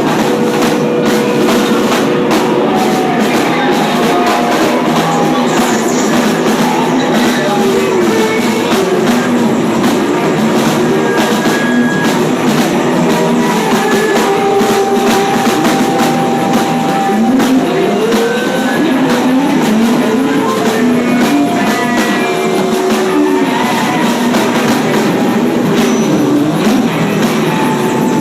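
Live electric guitar noise improvisation: a loud, dense, unbroken wash of distorted sound with held feedback-like tones and pitches sliding up and down.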